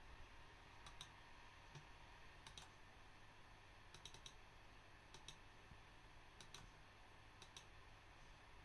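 Faint clicks of a laptop being operated by hand, single and in quick pairs like double-clicks, about once a second with a short flurry near the middle, over a faint low hum.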